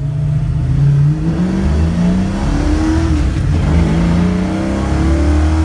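Classic Ford Mustang engine accelerating under load, its pitch climbing, dropping at a manual upshift about three seconds in, then climbing again in the next gear.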